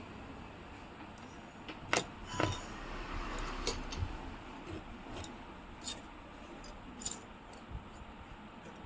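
Irregular sharp clicks and light scraping of small metal tools against an iPhone XS frame as the leftover adhesive is scraped off after the back glass has been removed. The loudest clicks come about two seconds in.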